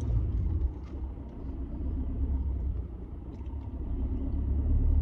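Car cabin rumble while driving: low, steady road and engine noise heard from inside the moving car. It eases off about a second in and grows louder again near the end.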